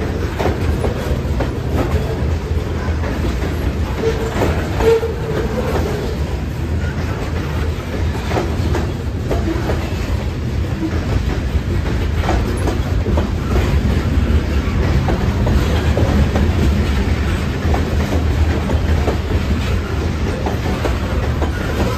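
Freight train of covered hopper cars rolling past at close range: a steady rumble with the clickety-clack of wheels over rail joints.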